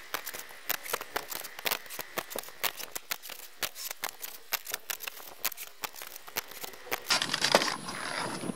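Quick, irregular clicks and taps, a few a second, from work on a galvanized 5V-crimp metal roof as sheet-metal screws are set. About seven seconds in, a rustling noise rises over them.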